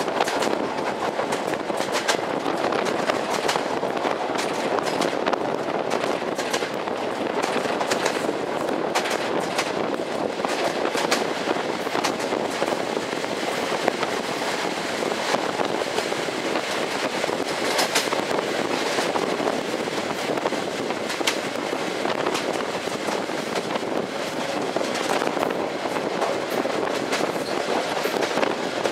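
Passenger train running along the track: a steady rumble of wheels on rails with irregular sharp clicks and knocks from the wheels passing over the track.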